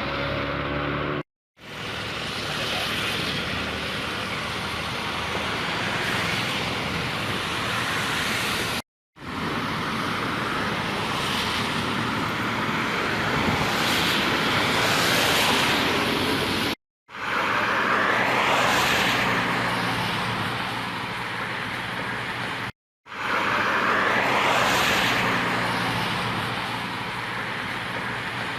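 Storm wind and rain noise, rising and falling in gusts, in several short clips joined by abrupt cuts, with a faint steady low hum under some of them.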